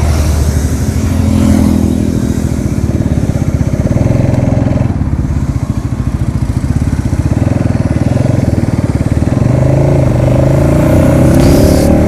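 Motorcycle engine running under way, with wind noise. The engine pitch climbs over the last few seconds as the bike speeds up.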